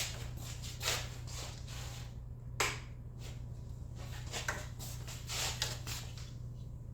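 Hands handling and positioning an LED motorcycle headlight unit: light rustles and knocks, with one sharp click about two and a half seconds in, over a low steady hum.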